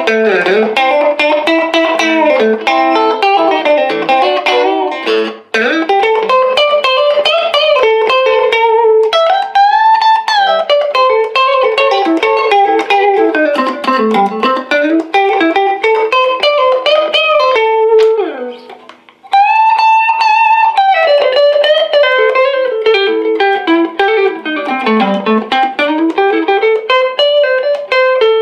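1959 Fender Duo-Sonic electric guitar with its original pickups, played through an amplifier: quick single-note runs climbing and falling in pitch, with short breaks about five seconds in and again about two-thirds of the way through.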